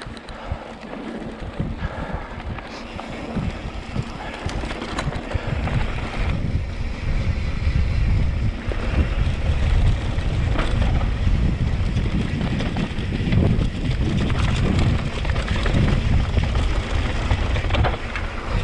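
Wind buffeting the camera microphone of a mountain bike descending a dirt trail, with the tyres rolling over dirt and the bike rattling over bumps. The wind rumble grows louder as speed builds about a third of the way in.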